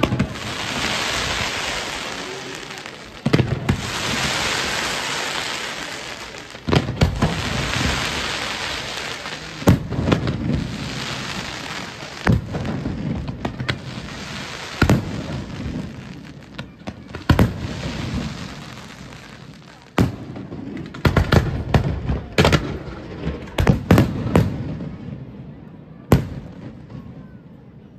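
Professional fireworks display: sharp bangs every two to three seconds, each followed by a long hissing rush that dies away before the next. About three-quarters of the way in, a quicker run of bangs comes close together, then one last bang and the sound fades.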